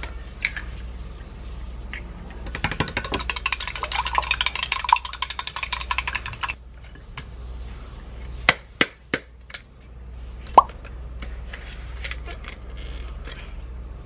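An egg cracked against a glass cup, then beaten briskly in the cup for about four seconds, the utensil clicking rapidly against the glass. Near the end come a few sharp separate clinks of kitchenware, one ringing briefly.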